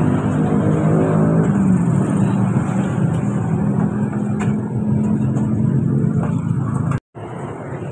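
A motor vehicle engine running close by, its pitch drifting slightly up and down. The sound drops out completely for a moment about seven seconds in.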